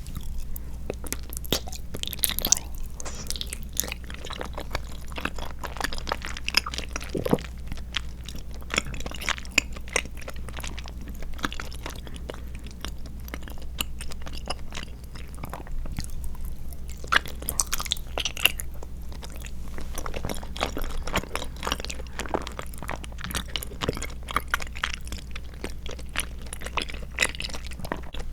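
Close-miked chewing of a chewy tapioca-pearl and milk-jelly dessert: a steady run of small wet clicks and smacks, with no pauses.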